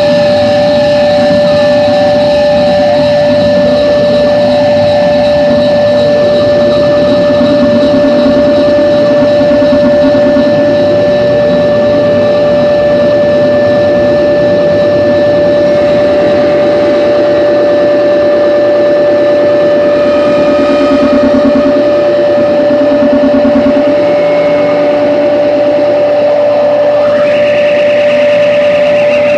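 Loud, dense harsh-noise performance from electronic gear: a wall of distorted noise with one steady tone held throughout, a wavering tone in the first few seconds, and a higher wobbling tone rising in near the end.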